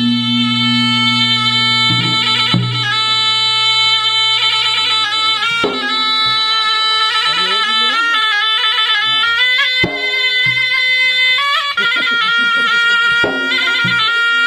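Traditional South Sulawesi drum-ensemble music led by a shrill, reedy wind instrument playing long held notes with ornamented turns, with a few drum strokes beneath.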